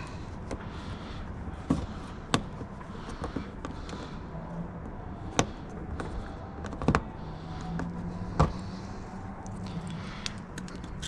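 Scattered clicks and knocks of car trim parts being handled and fitted by hand, with about five sharper knocks a second or so apart, over a faint steady hum.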